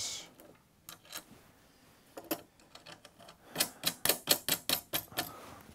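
Small metal hardware (bolts, washers and flexible bus bars) clicking as it is fitted by hand onto LiFePO4 cell terminals. A few scattered clicks, then a quick run of about a dozen sharp clicks in the second half.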